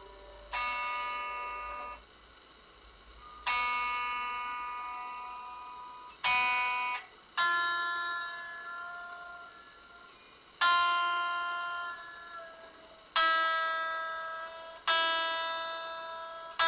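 Single strings of a Harley Benton SC-550 single-cut electric guitar plucked one at a time while it is being tuned. There are about seven notes, each struck sharply and left to ring and fade, two of them stopped short.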